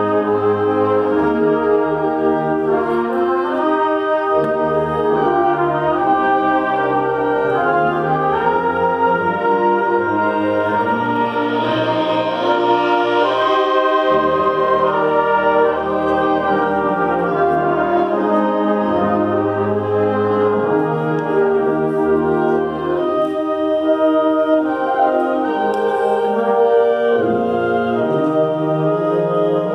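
High school concert band playing, with brass to the fore, holding chords that change every second or two. There is a brighter swell near the middle.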